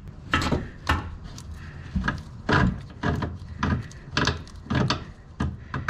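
A string of irregular metal clunks and scrapes as the pivot bolt is worked out of the rear joint of a VW T5 Transporter's lower suspension arm, freeing the arm to drop.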